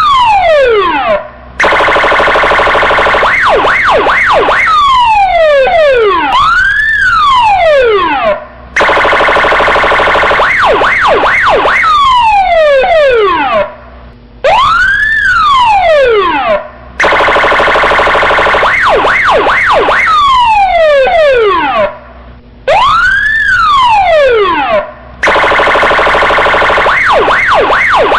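Electronic police siren cycling through its tones over and over: a rising-and-falling wail, a steady buzzing horn tone, a few quick yelps and a long falling sweep, with short breaks between sequences.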